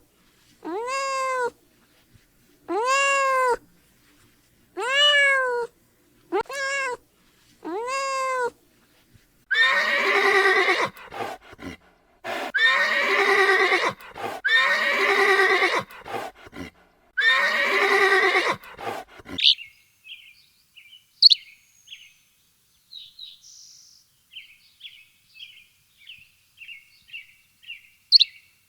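A series of animal calls. About six short calls, each rising and falling in pitch, come one every second or two. Four longer quavering calls follow, and near the middle they give way to a quick run of short, high chirps.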